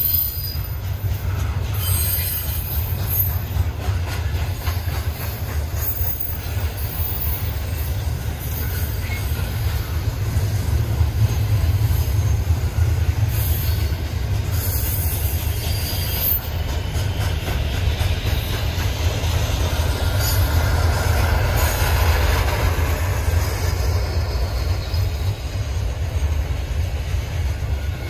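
Freight train rolling past: a steady low rumble of the cars' wheels on the rails, with short high-pitched wheel squeals now and then.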